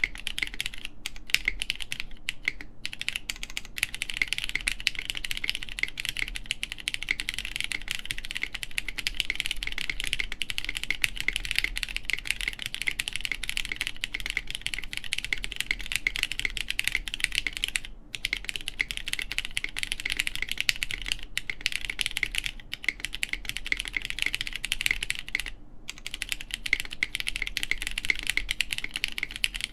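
Fast, continuous typing on a plateless mechanical keyboard with lubed Cherry MX Brown switches, GMK keycaps and a Kailh BCP spacebar switch: a dense run of keystroke clacks that pauses briefly twice, once a little past halfway and again near the end.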